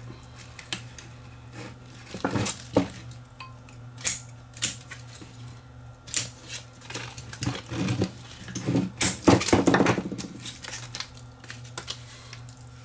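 Metal-cased battery cells clinking and knocking against each other and the workbench as the pack is handled, with snips of scissors cutting the tape and the rustle of plastic wrap. The rustle is densest about nine seconds in. A low steady hum runs underneath.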